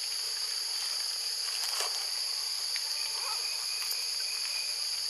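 Steady, shrill drone of forest insects in several high pitches at once, with a few faint clicks.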